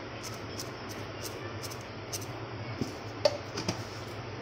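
Chilli flakes being shaken from a plastic jar into a glass bowl: a run of light ticks, two or three a second, with a sharper click a little past three seconds in, over a steady low hum.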